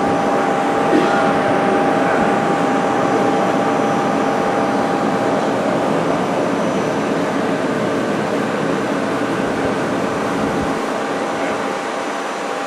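Hardinge Quest CNC lathe running with its spindle turning: a steady mechanical whir with a held whine, easing slightly toward the end.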